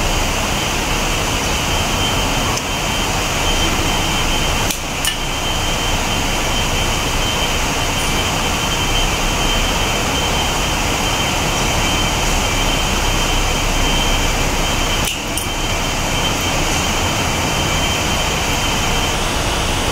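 Steady background noise of running machinery, with a thin high whine that stops near the end.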